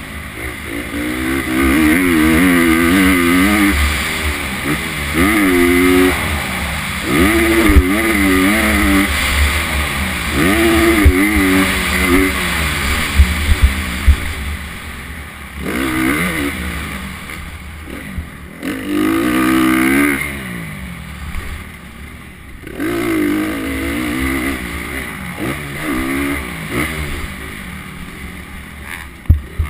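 Motocross bike engine revving hard and falling back over and over as it is ridden round a dirt track, with its pitch climbing in repeated sweeps and dropping away briefly a few times in the second half. A steady low rumble runs underneath, with a few sharp knocks.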